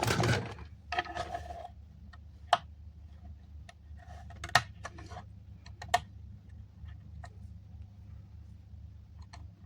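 Small hard clicks and taps from handling the parts of an opened AirPod during repair, with three sharper clicks about two and a half, four and a half and six seconds in, over a faint low hum.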